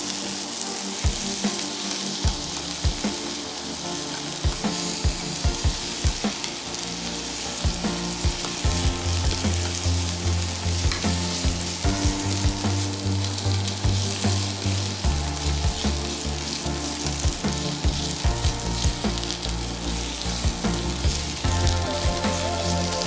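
Asparagus pieces sizzling in a nonstick frying pan while being stir-fried with wooden chopsticks, which click and scrape against the pan many times over the steady hiss of the frying.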